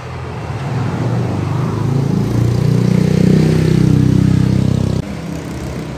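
A motor vehicle's engine running close by, growing louder over the first couple of seconds and then stopping suddenly about five seconds in.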